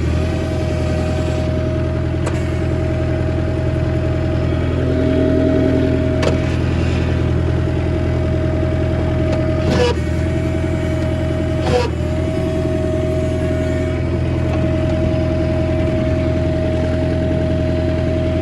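Bobcat 743 skid steer running steadily, its engine hum carrying a steady whine above it. The whine breaks briefly with a sharp knock about ten seconds in and again about twelve seconds in.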